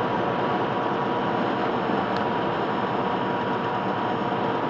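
Steady engine drone and road noise inside a semi-truck cab at highway speed.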